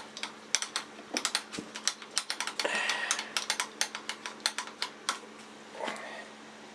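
Milling machine controls being worked by hand to line a pin up with a hole: rapid, irregular mechanical clicking that eases off after about five seconds, over a faint steady hum.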